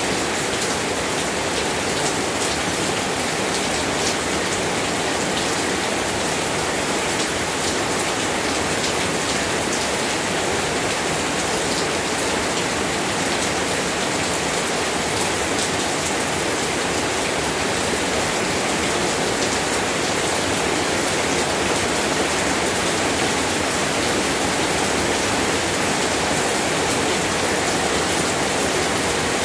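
Steady rain falling, a continuous hiss with many individual drops ticking on a surface.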